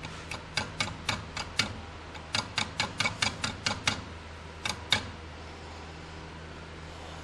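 About seventeen sharp light taps in three quick runs, three or four a second, the last two the loudest: the head of a Clausing milling machine being tapped over by hand to tram it, nudging it until the two dial indicators line up.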